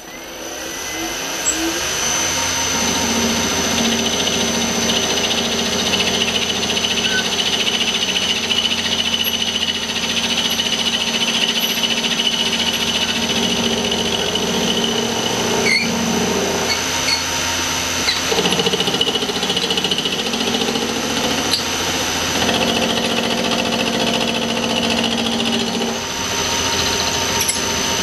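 Milling machine running, its end mill taking a shallow cut along a brass bar to mill a step just under half a millimetre deep. The noise rises over the first two seconds, then runs steadily with a high whine.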